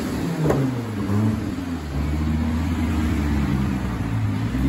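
Twin-turbo Dodge Viper V10 on a chassis dyno, off the throttle at the end of a full-power pull. The engine note falls steadily, with a single sharp click about half a second in, then settles into a steady low drone.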